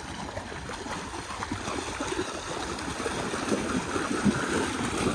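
A German shepherd and a Labrador running through a shallow canal, the water splashing and churning continuously and growing louder as the dogs come closer.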